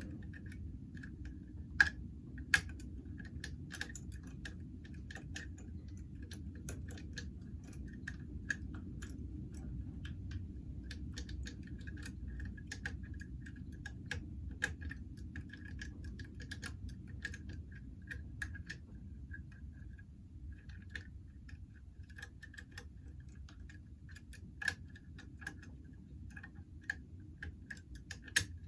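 Lever lock picks working inside five-lever mortice locks: irregular small metallic clicks and ticks as the pick wires lift and drop the levers, with a faint low rumble underneath.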